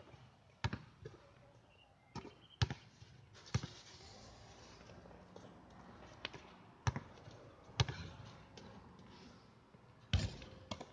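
Basketball bouncing on a hard outdoor court: about eight sharp, irregularly spaced bounces rather than a steady dribble.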